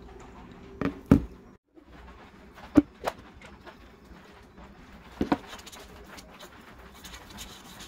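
A few sharp knocks and clicks, two pairs in the first few seconds and another pair past the middle, as a metal cake pan and containers are handled on a wooden table, then faint rubbing of fingers spreading vegetable shortening over the metal pan.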